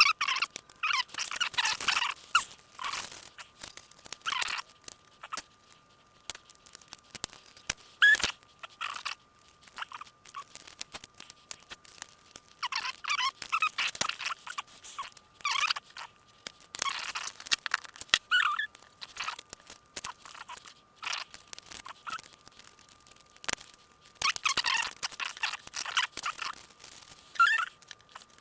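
Small plastic parts and wires being handled and pushed into place close to the microphone: irregular scratchy rustling and crinkling with sharp clicks, in clusters. A faint steady high tone runs underneath.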